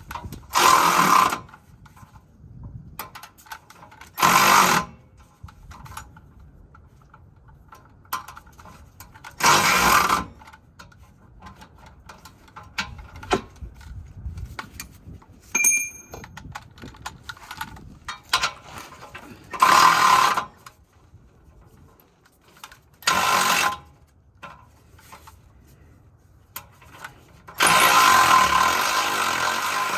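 Cordless power tool run in short bursts of about a second, five times, on a battery that is running low; a longer steady run starts near the end.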